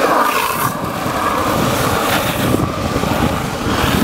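Longboard wheels rolling fast on asphalt: a steady rushing rumble with no clear rhythm.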